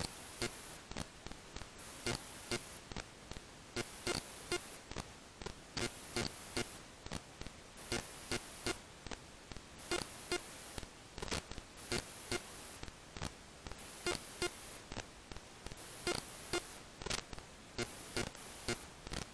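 Background music with a steady, evenly repeating beat and a high electronic tone.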